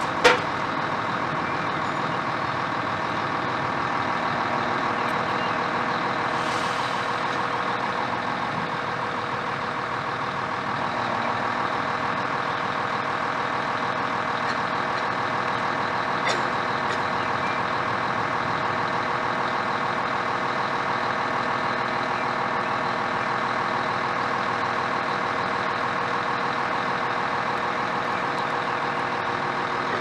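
Heavy construction machinery running steadily: an engine-like drone with a constant pitch that holds throughout, and a single sharp click about sixteen seconds in.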